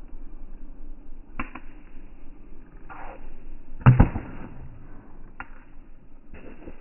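Pickleball rally: paddles striking the hard plastic ball, sharp pocks about every second to second and a half. The loudest comes about four seconds in, when the nearer player hits the ball.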